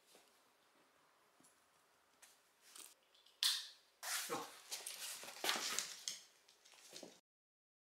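Rustling and scuffling with several sharp clicks as a small dog is handled into a harness, the bursts coming thick from about two seconds in; the sound cuts off abruptly near the end.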